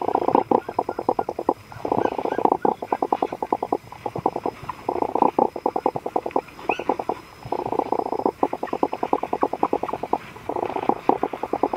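Saint Bernard puppies making quick rhythmic mouth or breath sounds, about eight to ten a second, in bouts of a second or two with short pauses between.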